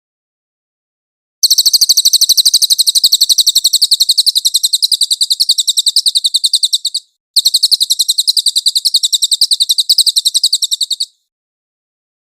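Cililin bird singing: two long runs of rapid, evenly repeated high notes, the first lasting about five and a half seconds, the second nearly four seconds after a short break.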